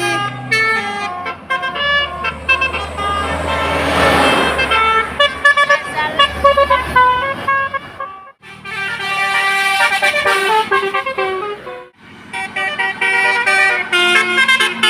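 Bus telolet horn (Basuri multi-tone musical horn) playing a melody of held notes that step up and down, in three runs broken by two short pauses. A low rumble runs under the first half, with a noisy surge about four seconds in.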